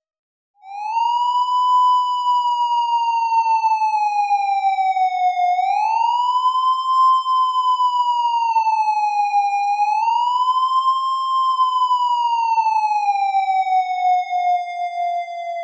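Police siren on a slow wail: one clean tone that starts about half a second in and slowly rises and falls in pitch three times, easing down near the end.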